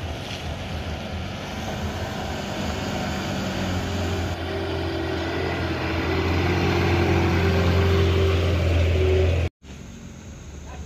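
Diesel engine of a Mitsubishi Fuso light truck running at a steady note as the truck drives slowly past close by, growing louder. The sound cuts off suddenly about nine and a half seconds in, leaving a quieter hum of traffic.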